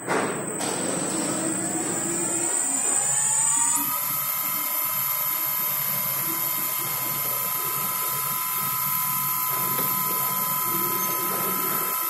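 CNC mill spindle motor on a variable-speed drive starting up: a whine that rises in pitch for about four seconds, then holds steady as the spindle runs at speed, unloaded and cutting air.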